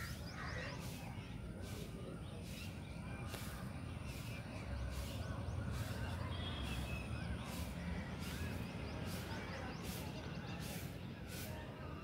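Crows cawing with other birds calling, over a steady low rumble that grows louder in the middle.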